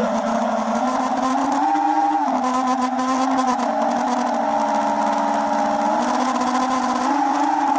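FPV quadcopter's electric motors and propellers whining, heard from the action camera mounted on the drone; the pitch rises and falls with the throttle, stepping up briefly about two seconds in and again near the end.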